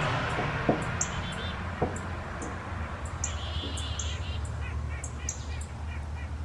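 Small songbirds chirping and calling: repeated short high chirps, a couple of buzzy trills and a quick run of short notes, over a steady low hum. There are two sharp knocks in the first two seconds.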